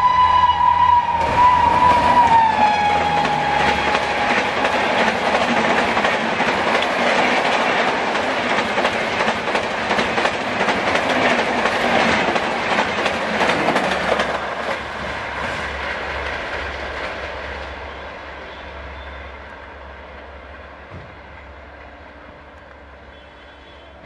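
Shrill horn of a WAP7 electric locomotive hauling a Rajdhani Express, dropping in pitch as it passes about two seconds in and stopping soon after. The train's LHB coaches then rush past at about 130 km/h, wheels clattering over the track, and the sound fades away over the last ten seconds.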